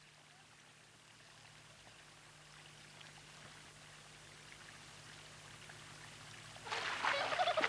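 Faint, steady background noise of a field recording, slowly growing louder; near the end a louder stretch of splashing, trickling water begins.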